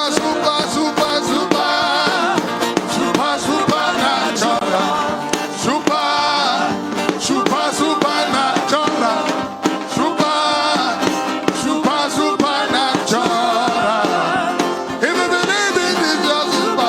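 Gospel worship music played by a band, with singing voices over the instruments.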